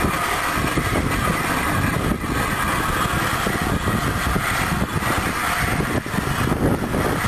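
Railbike rolling along a railway line: its wheels running on the steel rails in a steady, dense rumble.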